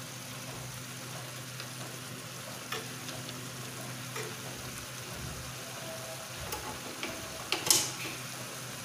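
A steel spoon stirring thick chicken gravy in a clay pot, scraping and lightly tapping against the pot, over a low sizzle from the pot just off the flame. A louder clink of the spoon on the pot comes near the end.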